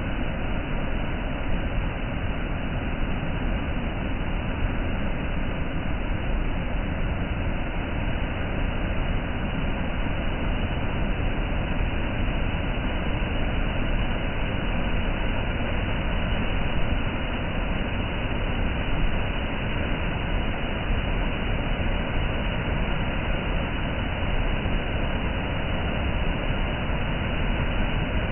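Waterfall: a steady, unbroken rush of falling water, heaviest in the low rumble.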